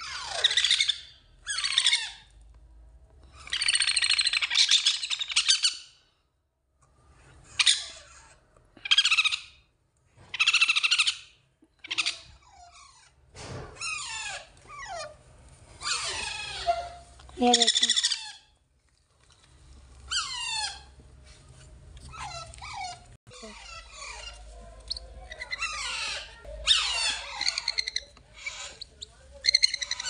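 Baby parrot chicks giving harsh, raspy food-begging calls in repeated bursts every second or two while being hand-fed.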